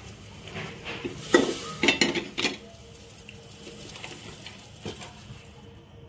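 Metal clinks and knocks of kitchen utensils against an aluminium pressure cooker: a quick cluster of sharp strikes about a second in, then a single knock near the end.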